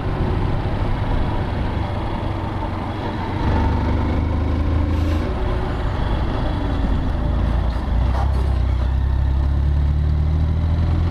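Motorcycle engine running at low speed in traffic, with wind and road noise over the bike-mounted microphone. Its low hum grows stronger about three and a half seconds in and again from about eight seconds as the bike slows toward a stop to refuel.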